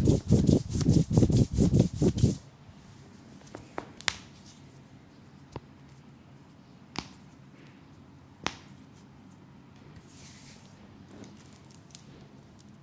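Vigorous hand massage rubbing on oiled skin: fast, rhythmic strokes, about five a second, that stop about two and a half seconds in. After that it is quiet apart from a few isolated sharp clicks and one soft swish.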